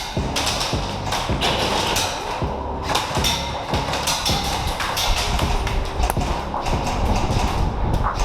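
Airsoft guns firing: a run of sharp, irregularly spaced shots and knocks, several of them close together, over background music.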